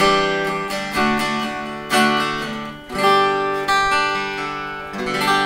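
Acoustic guitar strung with Ziko DUS silver-plated strings (gauge 12), played fingerstyle: chords plucked about once a second, each left to ring and fade. The player calls the tone tight and smooth.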